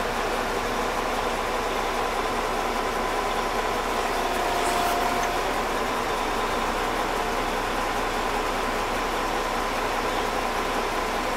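Caterpillar 972H wheel loader's diesel engine running steadily, heard from inside the cab, with a faint brief whine about five seconds in.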